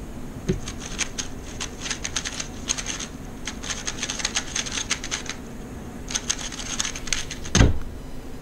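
3x3 speedcube turned at speed during a speedsolve: a dense run of fast plastic clicks with a couple of short pauses, ending with a loud thump as the hands slap the speedcubing timer to stop it, about seven and a half seconds in.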